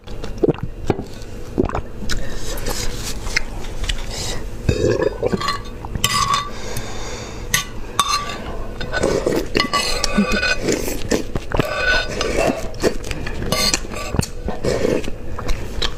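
Slurping soup and noodles, with a metal spoon clinking and scraping against a granite-coated bowl many times.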